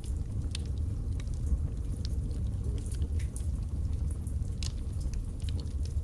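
Wood fire burning in a fireplace: logs crackling with irregular sharp pops, a few a second, over a steady low rumble of the flames.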